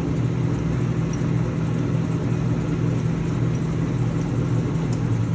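LeBlond Regal 13-inch engine lathe running in low range with the spindle at 45 RPM: a steady hum and whir from the headstock gearing and motor, with a faint click near the end.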